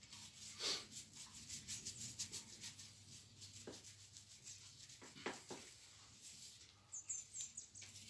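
Soft taps and rubbing of a plastic bottle base being dabbed in paint and pressed onto paper, with a quick run of light scrapes about a second in and a few single taps later. A few faint high chirps near the end.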